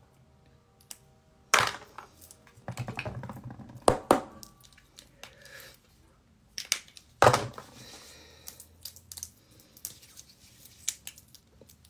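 Makeup items and packaging handled close to a phone microphone: crinkling and rustling with a tearing sound, broken by a few sharp knocks about one and a half, four and seven seconds in.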